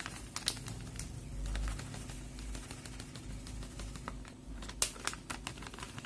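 Plastic packet of rice flour crinkling as it is tipped into a steel measuring cup, with many scattered light clicks and ticks.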